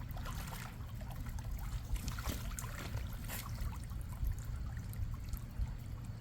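Water trickling and sloshing in an inflatable kiddie pool as dogs move about in it, with a few small splashes about half a second, two seconds and three seconds in, over a steady low rumble.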